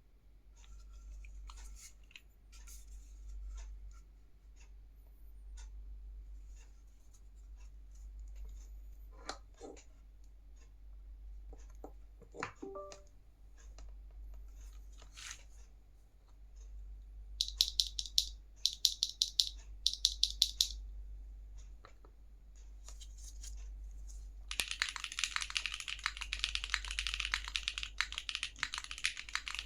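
Plateless, gasket-mounted Vertex ARC60 mechanical keyboard with Gateron Cream Soda switches and GMK keycaps. Scattered single keypresses come first, then three short runs of rapid repeated keystrokes, then fast continuous typing over the last five seconds, all over a steady low hum.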